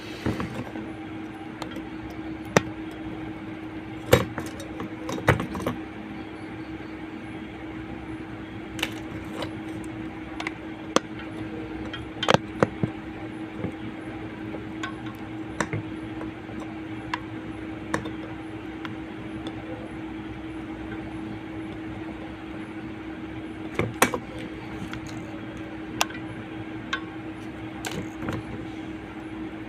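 Scattered light clicks and taps of small metal repair tools against a mobile phone's circuit board, irregularly spaced, over a steady low electrical hum.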